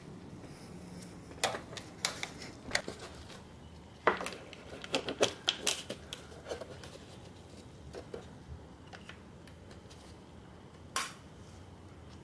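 Scattered sharp clicks and clacks of parts and tools being handled in a car's engine bay. Most of them bunch up about four to six seconds in, with one more click near the end.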